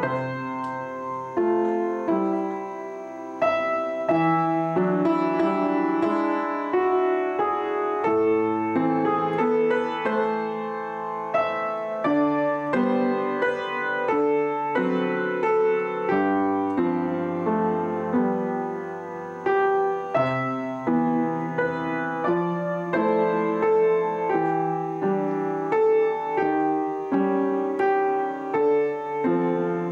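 Upright piano played with both hands: a Christmas song with variations, a steady stream of struck notes and chords.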